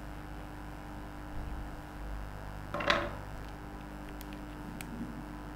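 Steady low hum, with one brief louder sound about three seconds in and two faint clicks after it.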